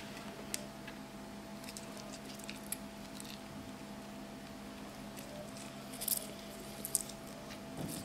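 Lemon half squeezed by hand over chopped herbs: faint squishing of the fruit with a few scattered small ticks and drips of juice, over a faint steady hum.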